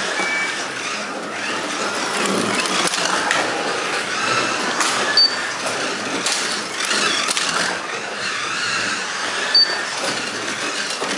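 1/24 scale Carrera Digital slot cars (Ferrari P4 models) lapping the plastic track, their small electric motors whining up and down with speed over a steady rattle. Two short high beeps sound, about halfway through and again near the end.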